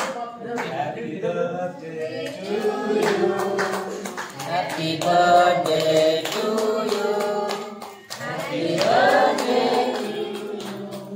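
Several voices singing a birthday song together, with hand clapping along.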